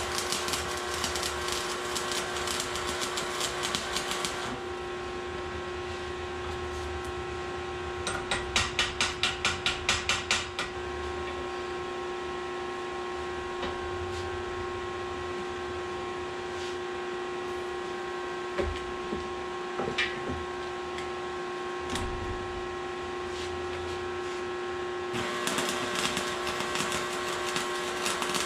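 MIG welder crackling as it lays weld on the edges of a stacked stainless and high-carbon steel billet; the welding stops after about four seconds and starts again near the end. In between comes a run of about a dozen quick, evenly spaced strokes and a few single knocks over a steady hum.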